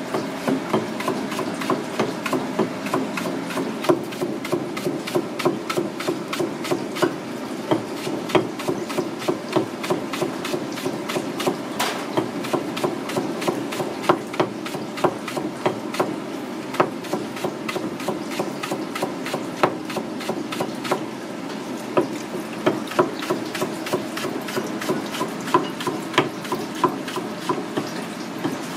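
A kitchen knife chopping rapidly through a green onion onto a plastic cutting board in quick, even strokes, several a second. A kitchen tap runs steadily into the sink underneath.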